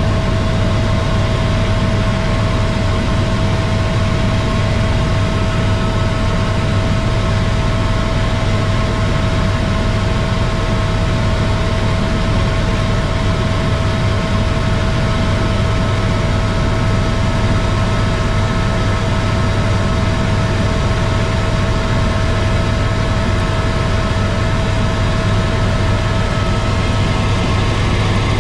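Helicopter cabin noise: the steady drone of the engine and rotor, with a constant high whine over it.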